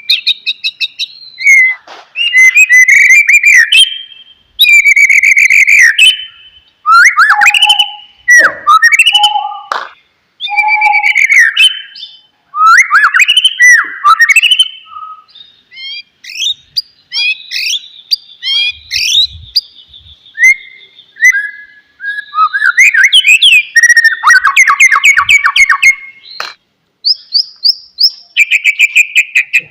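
White-rumped shama (murai batu) singing: a loud, varied song of clear whistles, slurred glides and fast rattling trills, delivered in phrases with short pauses between them.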